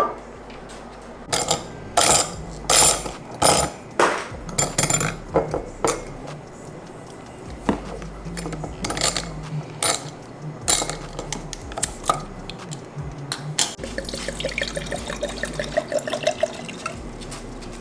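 Sharp glass clinks and knocks as a small wine bottle and glass are handled. Then red wine is poured into a glass, the pouring tone rising steadily in pitch as the glass fills.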